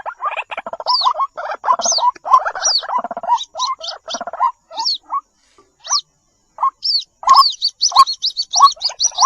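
White-breasted waterhens calling, a rapid run of short harsh croaking notes with thin high falling whistles over them. The calls break off for about a second midway and then pick up again, busier toward the end.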